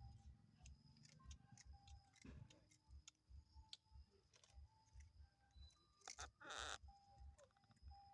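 Faint background music with a steady low beat, scattered with small clicks, and one short burst of noise about six and a half seconds in.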